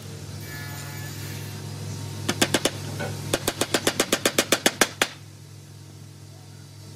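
Small hammer tapping a wooden glazing strip into place along the edge of a glass pane in a wooden door frame: a few taps about two and a half seconds in, then a quick run of about a dozen taps ending about five seconds in. A low steady hum underneath.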